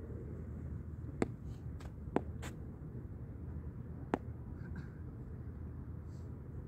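Steady low outdoor rumble, with a few sharp clicks, the loudest about one, two and four seconds in.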